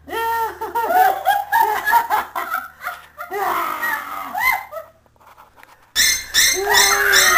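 A woman laughing hard and high-pitched in quick bursts, fading briefly about five seconds in, then breaking into laughter again.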